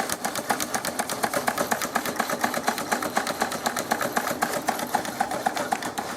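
Wilesco D24 toy steam engine running under steam, ticking over with a fast, even mechanical beat.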